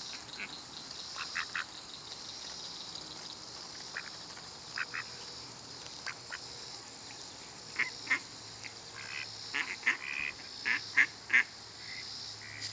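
Mallard ducks quacking in short calls, scattered at first and coming more often in the last few seconds. A steady high-pitched hiss runs underneath.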